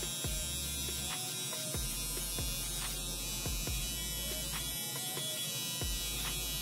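Electric T-blade hair trimmer buzzing steadily while it cuts along the beard neckline, with faint ticks about every half second as it is pressed in and drawn down in short strokes.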